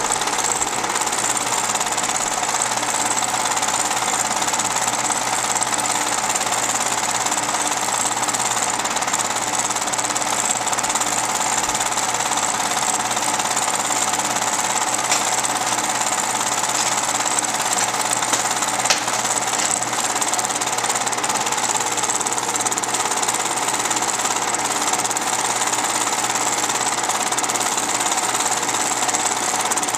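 Home-movie film projector running, a steady fast mechanical clatter.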